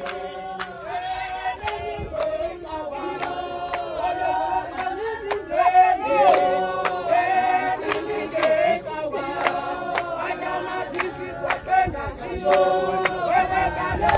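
A crowd of men and women singing together, with steady hand clapping at about two claps a second.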